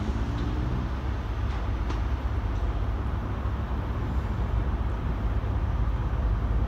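Diesel engine drone of a departing Class 158 and Class 153 diesel multiple unit, fading as the train pulls away, over a steady low rumble. The engine note dies away about a second in.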